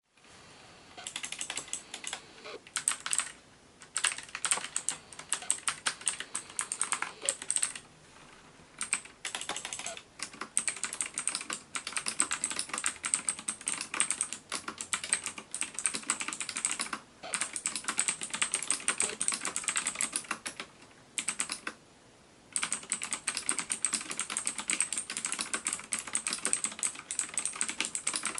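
Fast typing on a Lutis Lunatic K803 keyboard with Outemu optical switches: dense key clacks in runs, broken by several short pauses, the longest about a second and a half.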